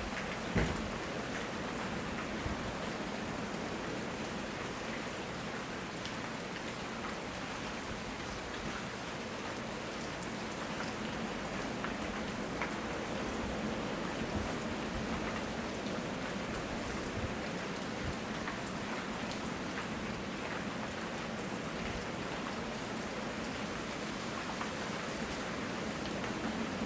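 Steady rain falling, with scattered separate drops ticking. A single low thump comes about half a second in.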